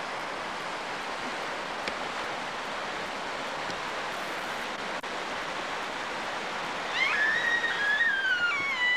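River rapids rushing steadily over rocks. Near the end a high voice calls out in a long squeal that falls in pitch.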